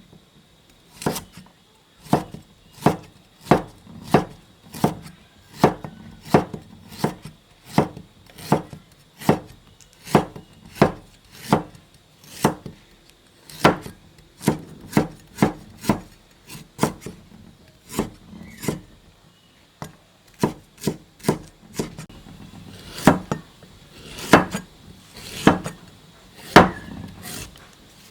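Knife chopping food on a wooden cutting board in steady single strokes, about one and a half a second. A few heavier strokes come near the end.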